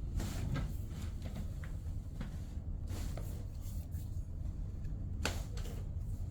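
Hands and a treatment table rustling and clicking during a chiropractic ankle adjustment, with a sharper click about five seconds in, over a steady low hum.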